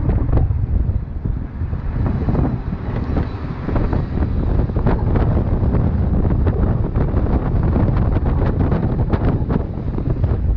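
Heavy wind buffeting the microphone, a steady low rumble with a few faint knocks.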